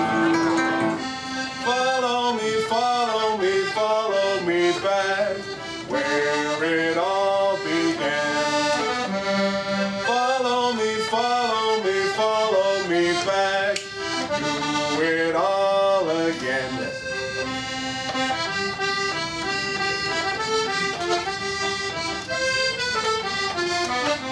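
Button accordion playing a traditional tune, with quick runs of notes.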